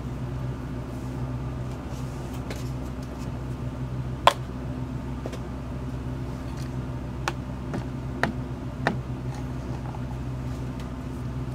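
A steady low hum with a few sharp clicks or taps, the loudest about four seconds in and three more between seven and nine seconds.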